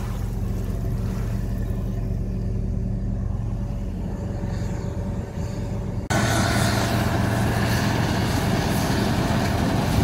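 Heavy farm machinery running steadily with a low engine hum. About six seconds in, the sound jumps abruptly to a louder, fuller machinery noise.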